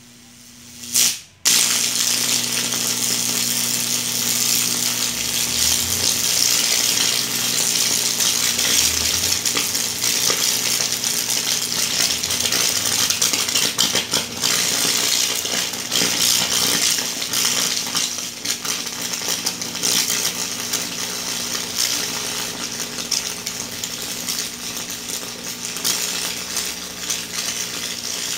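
High-voltage arcing from a microwave-oven transformer at about 2000 volts burning through salt-soaked wood, as in Lichtenberg-figure wood burning. A sudden loud burst about a second in, then continuous crackling and sizzling of the arc and burning wood over a steady electric hum.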